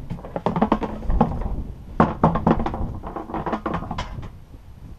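Irregular knocks and thunks as a plastic UTV fuel tank is tipped and handled, dying down near the end.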